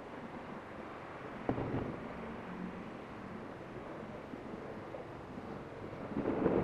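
Thunder over a steady background of wind on the microphone: a sudden crack about a second and a half in, then a louder rumble swelling near the end.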